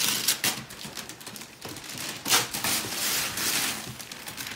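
Wrapping paper being torn and crinkled off a cardboard box in irregular rustles, with a sharper rip a little past halfway.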